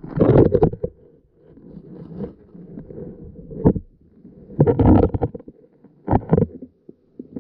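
Muffled underwater rumbling and sloshing from a submerged camera, with irregular louder surges: one at the start, another about two-thirds through and a shorter one soon after.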